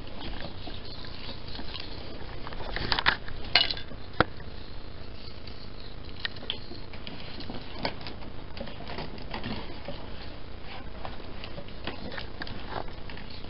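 Foil walking-balloon dog crinkling and rubbing close against the microphone in irregular small crackles and rustles. A few louder crackles come about three to four seconds in.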